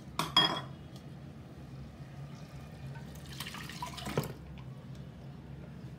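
Cooked, mashed manathakkali greens with toor dal being poured from a pressure cooker into a pan: a wet pouring and splashing. There is a metal clank just after the start and a knock about four seconds in.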